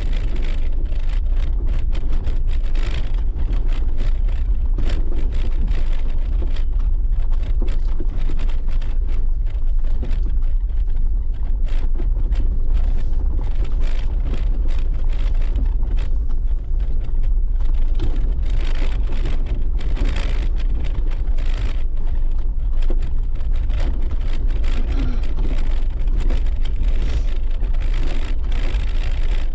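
Jeep driving slowly over a rough desert dirt track: a steady low rumble of engine and tyres, with frequent small knocks and rattles from the bumps.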